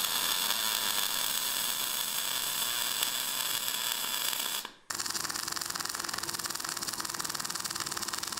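MAG welding arc on an EWM Picomig 180 puls with the voltage turned far down: a steady hissing crackle that breaks off about five seconds in and starts again as a finer, rapid crackle. The low voltage gives a very short arc, with the wire pushed hard into the weld pool, the sign of too little voltage set.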